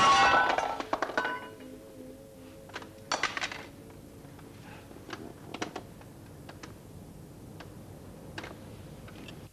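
Acoustic guitar's final strummed chord ringing out and fading over about a second, followed by scattered light clicks and knocks.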